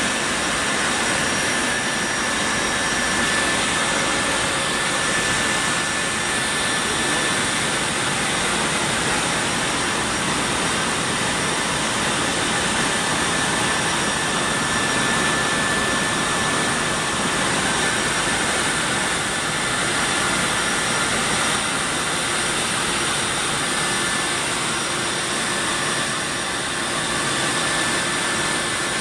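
Steady jet engine noise of a C-17 Globemaster III's four turbofans heard inside the cargo hold: an even, loud hiss with a few faint steady whines on top.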